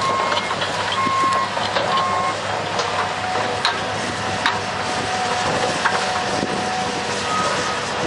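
Diesel earthmoving machinery running, with a backup alarm beeping about once a second for the first couple of seconds. A steady whine holds for several seconds in the middle, and there are a few sharp metallic clanks.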